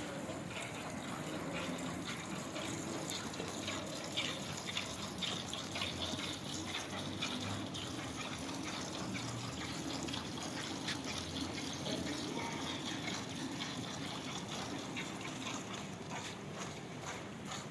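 Milk squirting from a cow's teats into a pail as it is milked by hand, in repeated short spurts.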